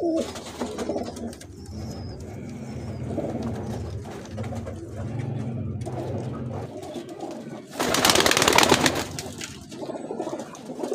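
Domestic pigeons cooing, a low throaty rumble repeating through the first seven seconds. About eight seconds in, a loud burst of rustling noise lasts about a second.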